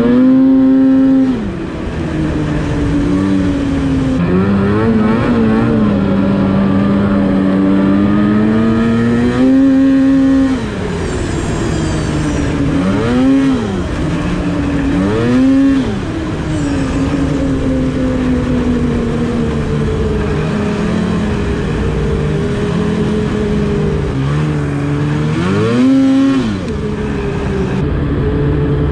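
Polaris Switchback Assault snowmobile's two-stroke engine running under way, revving up and easing off in about five swells a few seconds apart, with a steady drone between.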